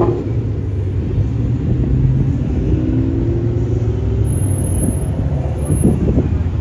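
Car engine running low and steady, its pitch rising slowly for a moment in the middle.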